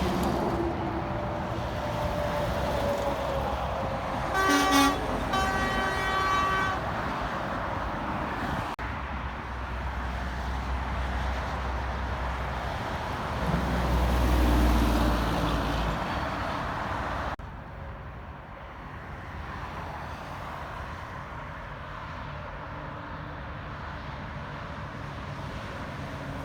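Road traffic passing, with an air horn sounded in two short blasts about four to seven seconds in. Near the middle a heavy vehicle's deep engine rumble builds and then fades.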